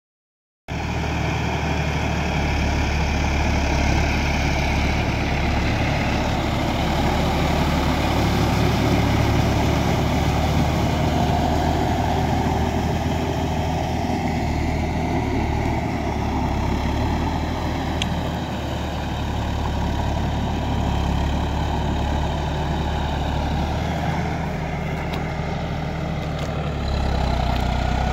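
Farm tractor diesel engine running steadily under load, pulling an implement through flooded paddy mud. It starts about half a second in.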